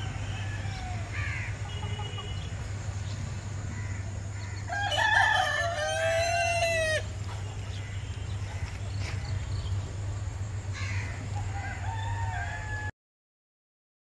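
A rooster crows once, a single call of about two seconds starting about five seconds in, with shorter, fainter clucking calls before and after it. A steady low hum runs underneath, and the sound cuts off suddenly near the end.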